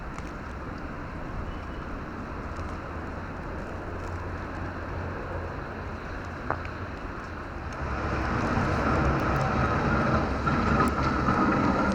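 Steady rumble of road traffic. About two-thirds of the way through a vehicle comes closer and grows louder, with a steady whine over a low drone.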